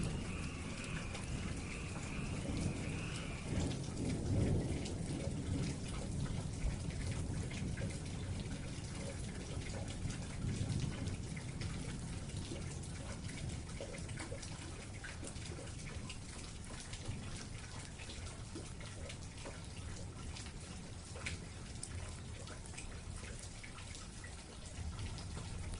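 Steady night rain falling, with many separate drops pattering and low rumbles swelling now and then. A high trilling sound runs through the first few seconds and stops about three and a half seconds in.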